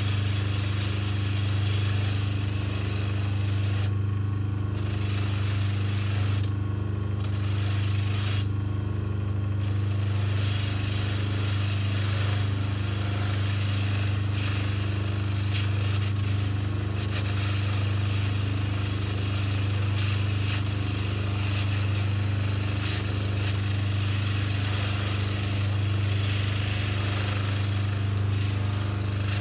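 Baldor bench motor running steadily with sandpaper on its shaft, a steel gun frame pressed against it to sand off deep rust: a constant motor hum under a rough sanding hiss. The hiss breaks off three times in the first ten seconds as the part is lifted from the abrasive, while the hum carries on.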